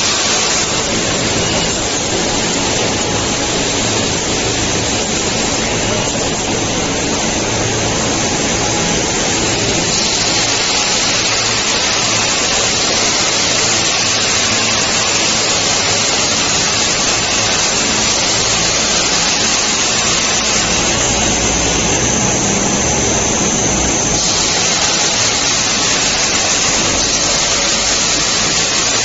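Ceiling-tile roller coating line running: a steady, even rushing noise of the production machinery. A low rumble swells briefly about two-thirds of the way through.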